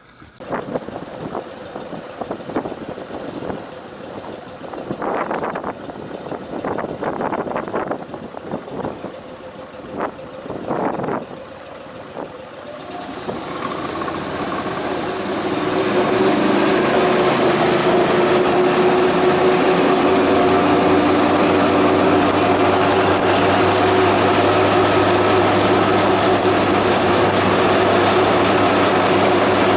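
37 hp fuel-injected mud motor (surface-drive boat motor) running unevenly at low speed, then opening up about 13 seconds in, over a few seconds, to a loud steady high-revving drone as the boat gets under way.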